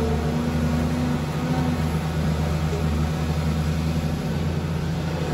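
Caterpillar 330D2 excavator's diesel engine running steadily under load as the bucket scoops and lifts a full load of soil.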